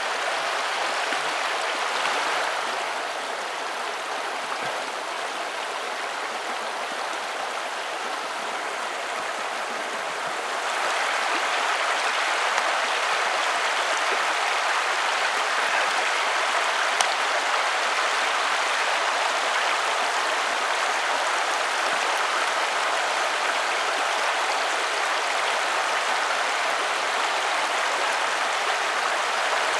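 Shallow river riffle rushing steadily, a little louder from about ten seconds in.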